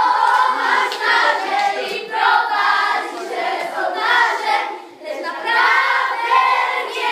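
A group of children singing together in sung phrases, with short breaks between them, and some hands clapping along.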